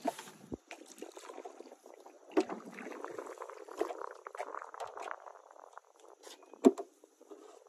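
Kayak paddle splashing and dripping in the water as it is stroked, with a few sharp knocks, the loudest near the end.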